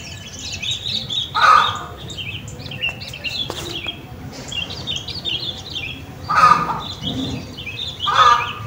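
Birds in a garden chirping and twittering steadily in high, quick notes. A louder, lower call from another bird cuts in about a second and a half in, and twice more near the end.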